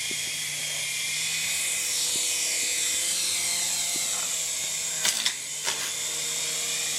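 Toy remote-control helicopter's small electric motor and rotors whining steadily, the pitch sliding up and down as its speed changes, with a few sharp clicks about five seconds in.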